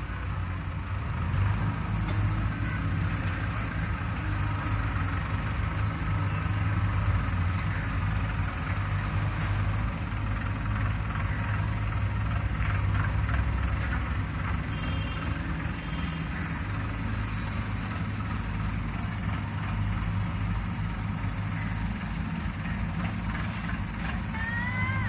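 Road roller's diesel engine running steadily with a constant low hum.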